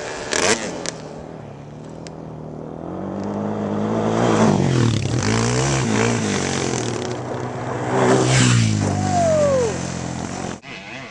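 Two quad ATVs ride past close by one after the other, about four seconds apart, each engine's pitch dropping as it goes by. The sound cuts off shortly before the end.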